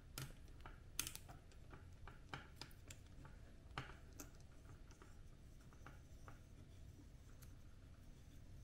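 Faint, scattered clicks and taps of 3D-printed PLA bipod parts being handled while a bolt is lined up and screwed in; the sharpest clicks come about a second in and just before the four-second mark.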